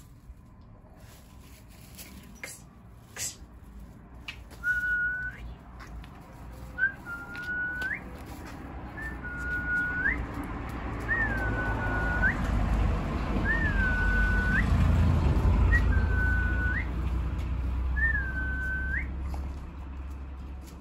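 About eight short whistled notes, each a level tone ending in a quick upward flick, repeated every one to two seconds. A low rumbling noise swells and fades behind them in the second half.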